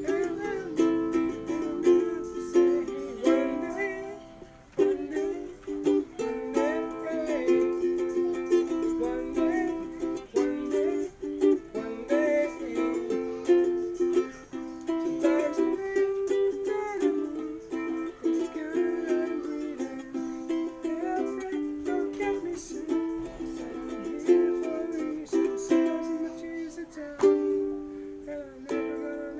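Ukulele strummed in a steady rhythm of chords, with a man singing along.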